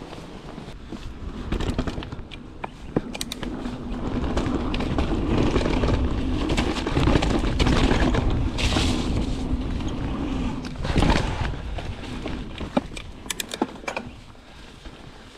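Santa Cruz mountain bike descending a dirt singletrack: tyres rolling over dirt and roots with many clicks, knocks and rattles from the bike, under a low wind rumble on the microphone. It grows louder through the middle and eases near the end.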